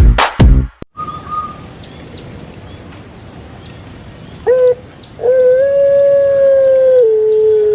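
An electronic music intro ends about a second in. After a quiet stretch with faint bird chirps, an animal gives a short call, then a long drawn-out howl held on one pitch for about three seconds, stepping down slightly and sliding down at the end.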